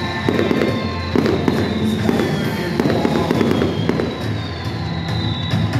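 Aerial fireworks going off in quick succession with many sharp pops and crackles, over music playing.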